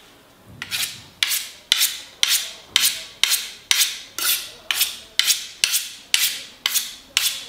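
Kitchen knife edge scraped across a diamond honing rod in repeated strokes, about two a second, with the blade held at 90 degrees to the rod to deliberately dull and remove the factory edge.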